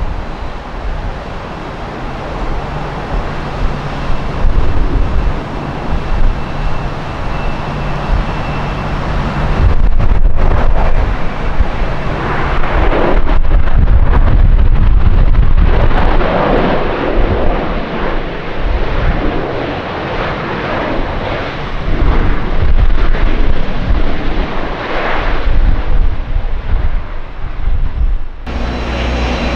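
Jet airliner engine noise mixed with heavy wind buffeting on the microphone, swelling louder partway through. Near the end it changes abruptly to a steadier engine hum.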